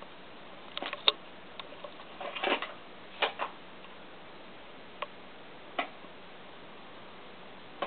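Paper bag crinkling and crackling in short, irregular bursts as cats paw at it and tear it apart.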